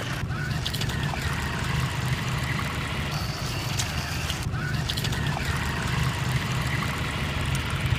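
Small homemade RC paddle-wheel boat under way on open water: its little electric motor runs steadily while the paddle wheels churn and splash the water, with small clicks now and then.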